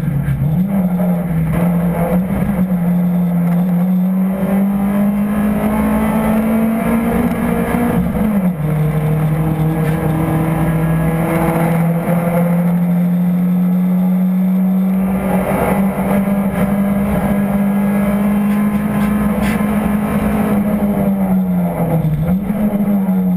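Toyota Celica ST162's 3S-GE four-cylinder engine heard from inside the cabin, driven hard at high revs with a steady, loud note. Its pitch climbs slowly, drops suddenly about eight and a half seconds in at an upshift, rises again later, and dips briefly near the end as the driver lifts off.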